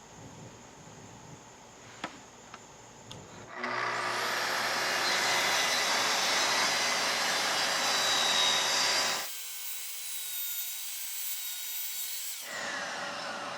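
Festool plunge-cut track saw cutting through plywood. A few light clicks come first, then the saw starts about three and a half seconds in with a loud, steady cutting noise. Its sound thins abruptly partway through and returns near the end.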